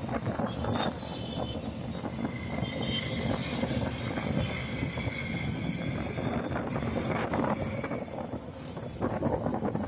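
Honda Unicorn motorcycle's single-cylinder engine running, with the unwanted noise the rider is checking for. The running is steady, with a short dip near the end.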